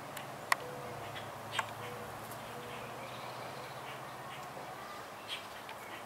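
Faint, scattered short bird chirps over a steady low background hum, with two sharp brief sounds in the first two seconds.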